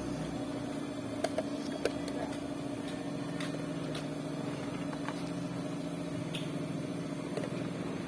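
Engine running steadily at idle, a constant even hum, with a few light clicks and taps, most in the first two seconds.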